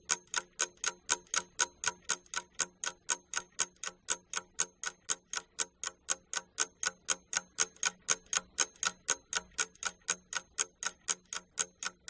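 Clock ticking sound effect: a steady, even tick about four times a second, marking the time given for an exercise.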